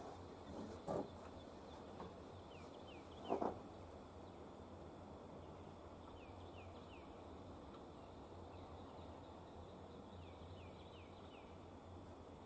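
Faint outdoor quiet with a small bird giving short, high, falling chirps in several little runs over a steady low hum. Two brief louder sounds come about one second and three and a half seconds in.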